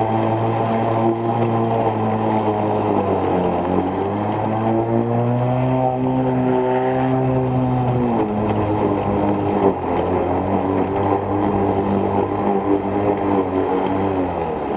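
Neuton CE6 36-volt electric lawn mower running while being pushed through grass: a steady motor-and-blade hum with a clear pitch. The pitch sags about three seconds in, climbs back, and drops again about eight seconds in.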